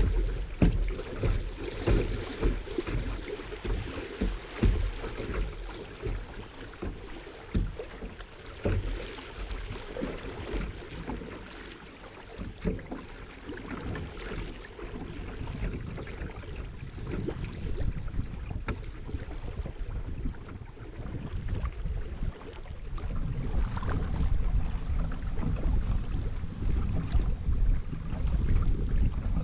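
River current rippling and splashing close to the microphone as a kayak rides through shallow riffles, with many small water slaps. A low rumble on the microphone grows stronger in the last several seconds.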